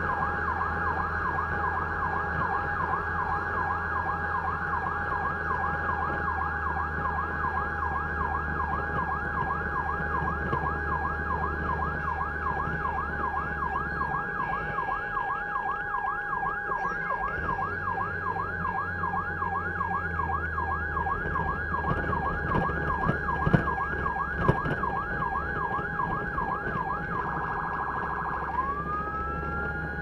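Emergency vehicle's electronic siren on a rapid yelp, sweeping up and down over and over above a low engine drone. Near the end it switches to a very fast warble and then a slow rising wail. Two sharp knocks come about a second apart a little past twenty seconds in.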